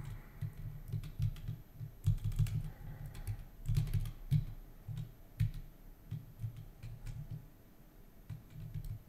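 Typing on a computer keyboard: irregular runs of keystrokes, busier in the first half and sparser toward the end.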